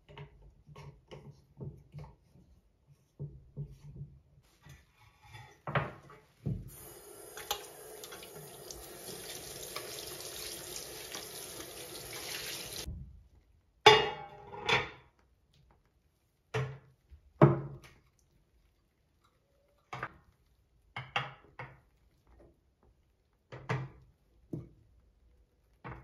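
Ceramic bathroom accessories clicking lightly as they are handled on a sink countertop. A tap then runs water into the basin for about six seconds and shuts off, followed by sharp knocks as the ceramic pieces are set down on the counter, the loudest two a few seconds apart.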